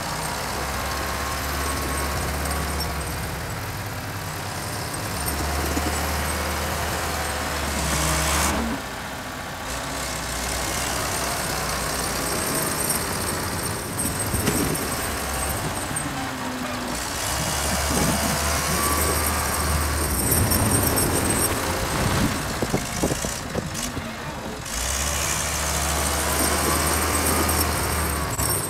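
Old Volvo BM wheel loader's diesel engine running as it pushes snow into a pile with its front bucket, its note rising and easing off several times as it works, backs away and comes back.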